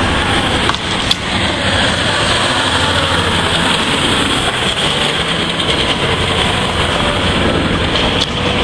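Steady engine and road noise of a moving vehicle, heard from on board while driving past other traffic, with a couple of sharp knocks about a second in.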